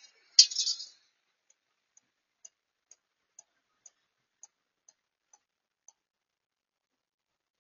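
Snow stakes clattering down onto the asphalt driveway about half a second in, a brief sharp rattle. Then light ticks about two a second, nine in all, while a stake is worked into its hole in the ground; they stop about six seconds in.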